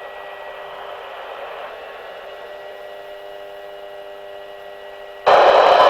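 Radio receiver carrying a weather broadcast with no speech: a low hiss with faint steady hum tones. A little after five seconds in, a sudden loud rush of static sets in.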